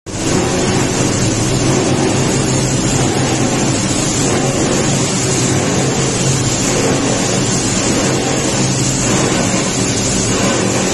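Machinery of a PET bottle recycling line running steadily: a loud, even din of electric motors, conveyors and a bottle crusher, with a steady low hum underneath.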